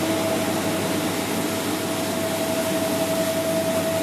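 MHR-1500 compact rice hulling and milling machine running steadily, an even mechanical rush with a steady whine over it.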